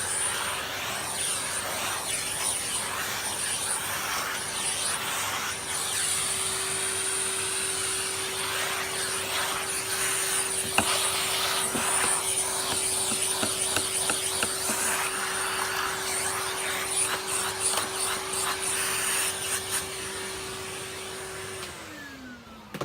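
Numatic Henry canister vacuum cleaner running steadily, its motor hum and high whine under a rush of air that rises and falls as it sucks up hair and dirt. Near the end it is switched off and the motor winds down with falling pitch.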